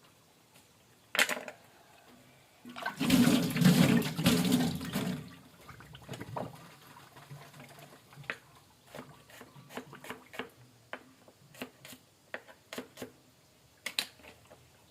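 Kitchen tap running water into the sink for about two and a half seconds, after a single click. Then a string of small, irregular clicks and taps.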